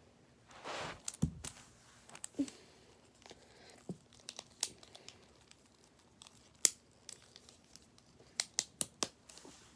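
Scattered light clicks and brief rustles, with a quick run of clicks near the end.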